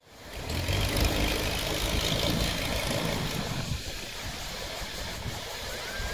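Beach ambience fading in: small waves washing onto sand, with wind rumbling on the microphone. A steady hiss of surf over an uneven low rumble.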